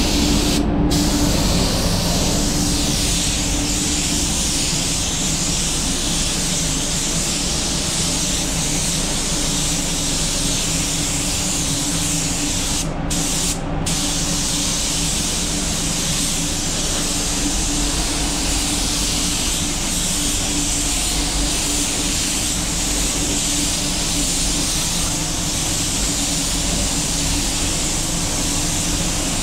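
Air spray gun hissing steadily as it lays a second coat of clearcoat. The hiss breaks off briefly about a second in and twice around halfway. A steady low hum runs underneath.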